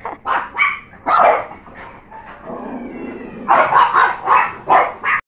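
Small dogs barking in sharp yaps: a few scattered barks in the first second and a half, then a quick run of about six barks from about three and a half seconds in.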